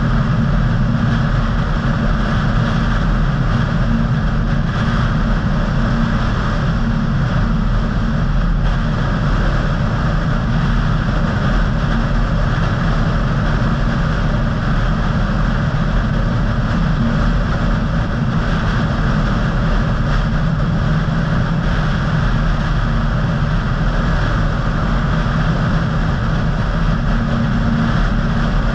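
Steady road and engine noise of a car driving at an even speed, heard from inside the cabin: a constant low rumble with tyre hiss that does not change.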